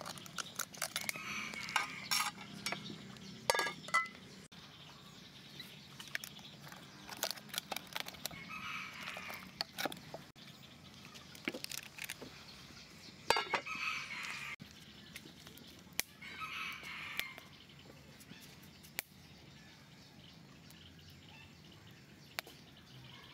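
Roosters crowing, about four crows a few seconds apart, over scattered sharp clinks and taps of metal utensils.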